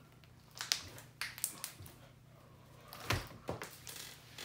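Scattered sharp clicks and pops from thick white mochi slime being kneaded and stretched by hand, air pockets popping as it is worked. The loudest pop comes a little past three seconds in.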